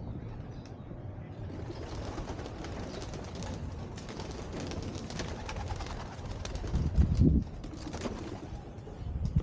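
Pigeons cooing around a dovecote, over a steady outdoor background, with a brief louder low rumble about seven seconds in.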